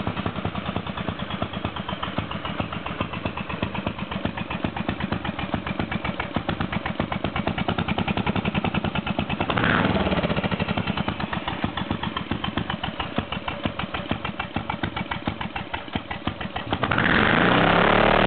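Lawn mower engine with a turbocharger piped into its carburetor intake, running with distinct, even firing pulses. It surges briefly about halfway through, and near the end it revs up into a louder, smoother run.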